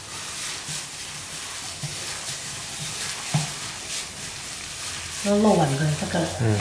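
Wet, irregular squelching of raw chopped shrimp and ground pork filling kneaded by a plastic-gloved hand in a stainless steel bowl.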